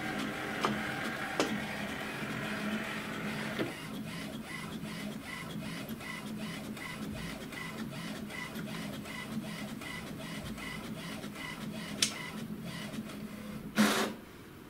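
HP Smart Tank 513 inkjet printer printing a copy: a motor whir at first, then steady rhythmic ticking at about three strokes a second as the print carriage sweeps back and forth across the page. One short, louder burst comes near the end.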